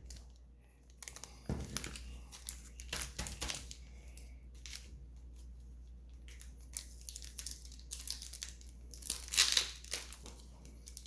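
Pokémon card packaging being torn open and crinkled by hand: irregular tearing and crackling, loudest a little after two-thirds of the way through.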